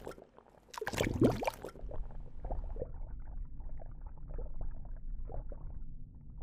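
Pond water splashing as a hand pushes a Lego submarine down into it: a louder splash about a second in, then small drips and sloshes as it settles, over a low steady rumble.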